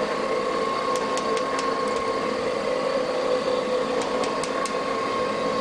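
Klopp 425 metal shaper running through a heavy cut on a vise's flat face: a steady mechanical hum and whine from the machine's drive, with a few faint light ticks.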